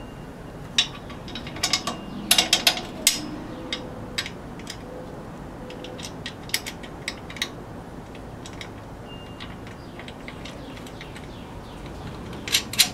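Metal clicks and clinks of a bolt and nut being fitted by hand to mount a rubber foot on a generator's steel frame: scattered single clicks, with a quick run of several about two seconds in and again near the end.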